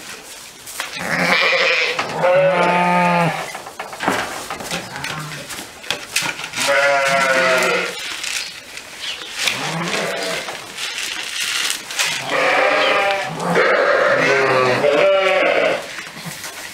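Sheep bleating: several long, quavering bleats, one after another, with short gaps between them.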